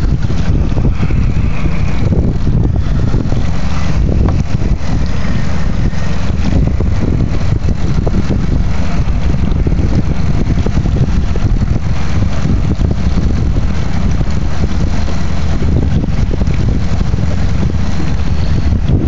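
Steady wind rumble on the microphone of a small boat under way, with the low hum of its motor running underneath.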